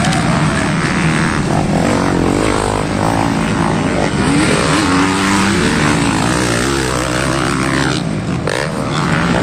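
Motocross bike engines racing around a dirt track, their pitch repeatedly rising and falling as riders rev through the turns and jumps.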